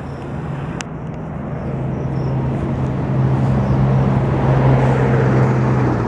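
Engine of a motor vehicle running close by, a steady low hum that grows louder over the first four seconds or so.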